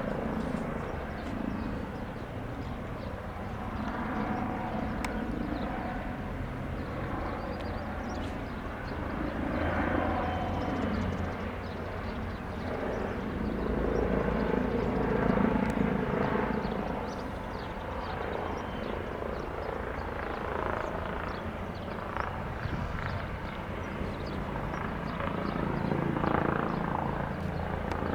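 Eurocopter EC135 twin-turbine helicopter arriving, its rotor and turbines running steadily and growing louder around the middle.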